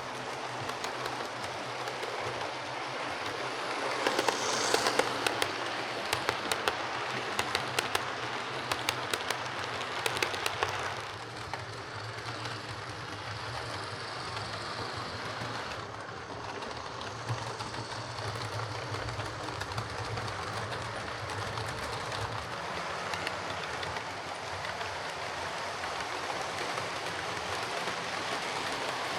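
OO gauge Lima Class 37 model diesel locomotive, converted to a CD motor, running on track: a steady motor hum with wheels clicking over rail joints, the clicking busiest in the first ten seconds or so.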